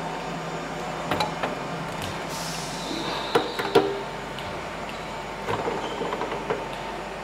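Metal knocks and clinks as a large steel open-end wrench is handled and set on the 41 mm hex of a lathe's through-spindle stop, the sharpest two about halfway through, with a brief scrape just before them. A steady hum runs underneath.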